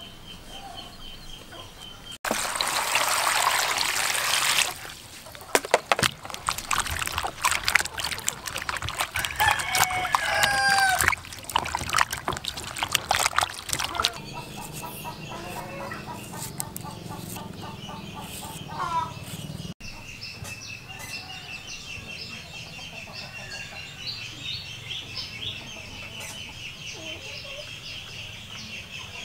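Food being prepared by hand: a loud rush of water splashing early on, then sharp clicks and knocks of knife and vegetable work with chickens clucking, then hands swishing pieces in a bowl of water. A steady high pulsing tone sits in the background at the start and again in the last third.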